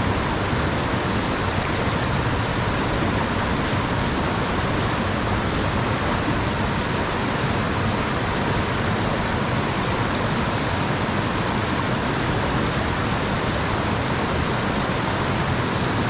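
Steady rushing water: an even, unbroken noise of flowing water.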